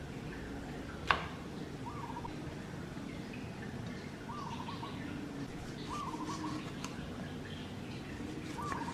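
A bird calling four times, each call a short rising note running into a quick stutter of notes. A single sharp clack, the loudest sound, comes about a second in.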